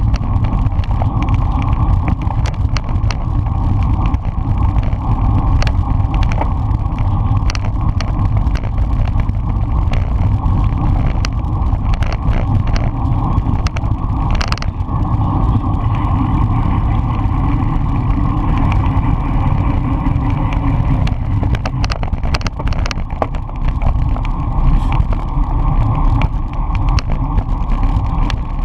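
Wind rushing over a bike-mounted action camera's microphone, with tyre and road noise from a road bicycle racing at speed. Frequent small clicks and knocks run through it, with one louder crack about halfway through.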